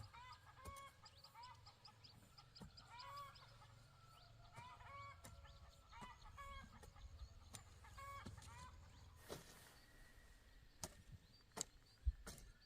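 Chickens clucking softly in a string of short calls, then a few sharp knocks near the end.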